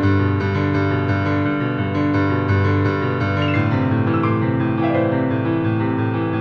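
Piano music playing a steady run of notes, about three a second, over sustained chords.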